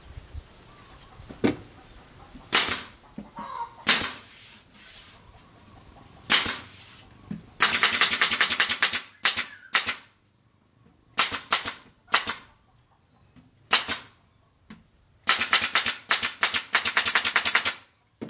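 Pneumatic nail gun firing nails into the wooden panels of a subwoofer box: a few single shots in the first seconds, then rapid strings of shots from about eight seconds in.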